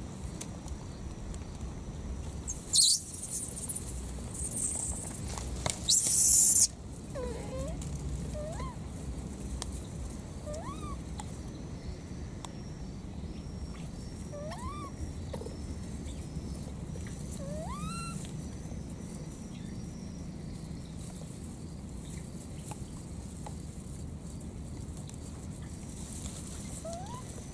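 A baby monkey giving short calls that rise in pitch, about seven of them spread out, over a steady low rumble. Two short loud noises come in the first seven seconds, before the calls begin.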